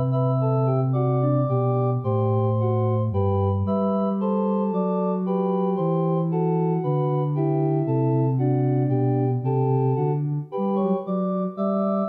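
Pipe organ playing a slow closing voluntary: sustained chords that change every second or so over a moving bass line.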